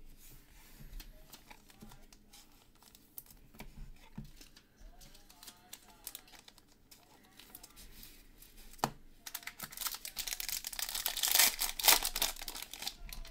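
Scattered light clicks and taps from handling, then, in the last few seconds, a louder stretch of a foil trading-card pack wrapper being torn open and crinkled.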